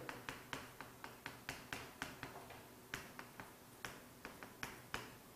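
Chalk writing on a blackboard: a faint, quick series of short taps and scratches, about four a second, as each stroke of the characters goes on.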